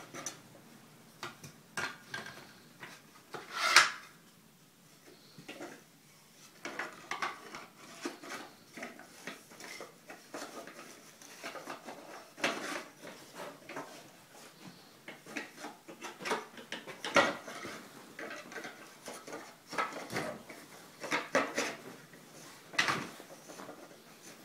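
Irregular clinking and clattering of small hard objects being handled and set down, with the sharpest knock about four seconds in.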